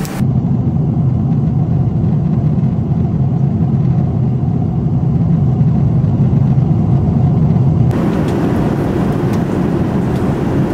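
Steady low drone of a jet airliner's cabin in flight. About eight seconds in the sound changes at a cut, with more hiss and a little less level.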